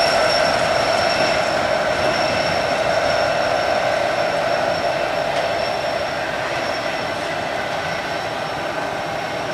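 Union Pacific double-stack container train rolling past: a steady, dense rumble of wheels on rail with a thin, steady high-pitched tone above it, slowly getting quieter.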